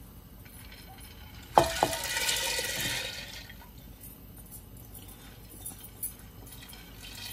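Soaked urad and chana dal poured from a ceramic bowl into water in a clay pot: two sharp clicks as the pour begins, then a splashing rush of lentils into the water for about two seconds, fading, followed by a few light taps as the last lentils are scraped in.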